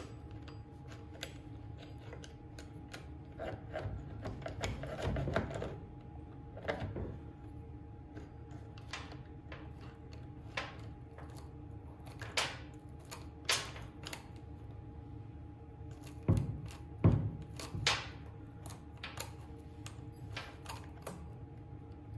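Saw chain links clicking and rattling against the chainsaw's guide bar and sprocket as the chain is worked onto the bar by hand, with scattered light clicks, a few louder knocks about two-thirds of the way through, and a faint steady hum underneath.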